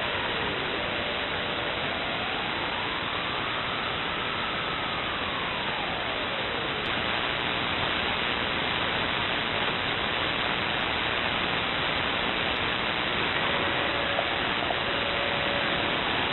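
Shortwave receiver static: steady hiss from a web SDR in upper-sideband mode on an HF military frequency, with no transmission on the channel. A faint whistle rises and falls once in the first half, and faint steady tones come in near the end.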